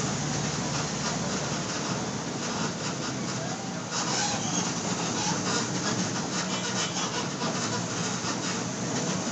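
Mercedes-Benz OF-1722 bus's diesel engine running steadily and faintly, heard from near the rear of the cabin, under a dense clatter of body and fitting rattles.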